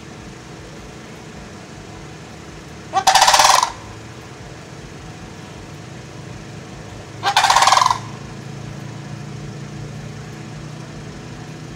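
Sandhill crane giving its rolling, rattling call twice, each call under a second long and about four seconds apart, over a low steady hum.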